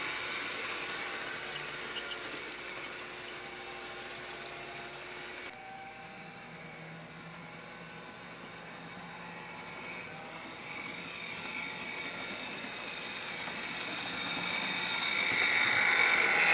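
Model freight train running on the layout track: the small electric motor of a Walthers Fairbanks switcher locomotive humming and the cars' wheels rolling on the rails. The sound changes abruptly about five seconds in, then grows louder near the end as the train comes close.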